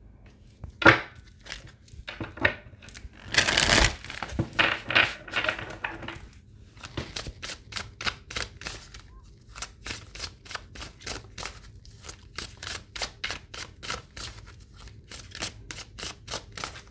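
A deck of cards being shuffled by hand: a sharp tap about a second in and a rustling stretch near four seconds, then a long run of quick card slaps, about three or four a second.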